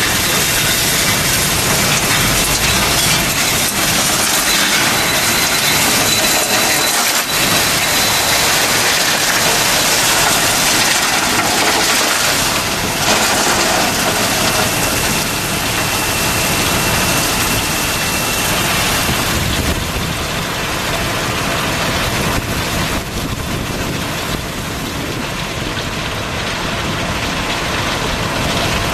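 Asphalt millings pouring out of a dump trailer into a Superior 48-inch Razertail truck unloader: a loud, steady rush of loose, gravelly material. It thins out and gets a little quieter about three quarters of the way through.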